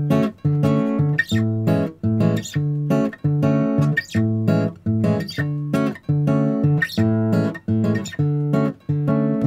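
Background music: acoustic guitar playing plucked chords in a steady, repeating rhythm.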